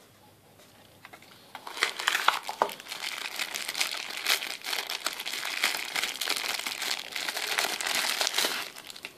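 Clear plastic bag crinkling as hands work a folding multitool pliers out of it. After a few faint clicks, the crinkling starts about a second and a half in, goes on steadily and stops just before the end.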